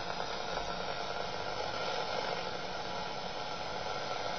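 Steady static hiss from a cheap Coby shortwave radio's speaker while it is tuned around 9.5 MHz, with no station coming in.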